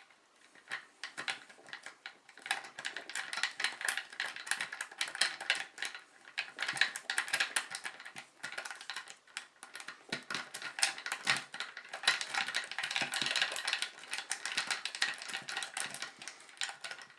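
Paperclip rake being scrubbed rapidly in and out of a five-pin tumbler lock under light tension, the steel wire scraping and clicking over the pins in a dense, irregular patter.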